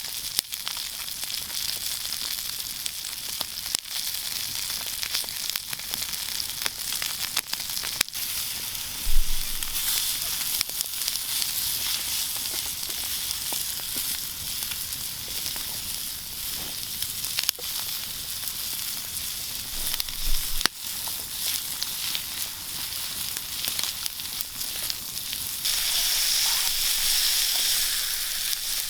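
Meat sizzling as it fries, a steady hiss with occasional sharp pops; the sizzle grows louder near the end.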